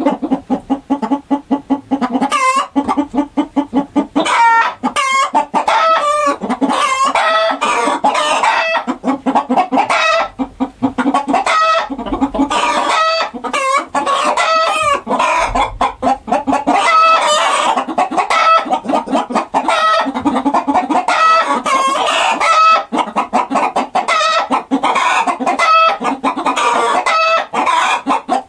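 A flock of chickens clucking continuously, with many short, overlapping clucks and squawks and an occasional rooster crow.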